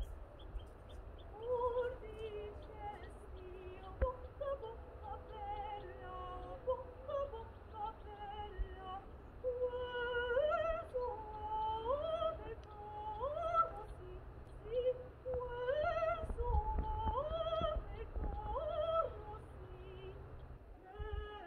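A woman singing solo without accompaniment: a melody in clear stepped notes, with several phrases that climb upward in the second half, over a low rumble.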